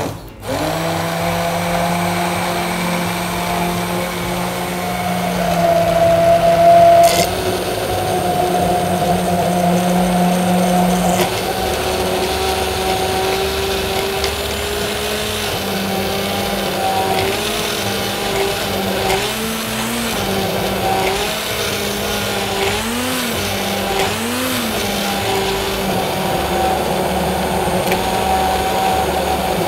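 Hand-held immersion (stick) blender motor starting about half a second in and running steadily as it purées thick pea soup in a tall plastic beaker. Its pitch shifts and briefly dips and recovers several times in the second half as the load changes.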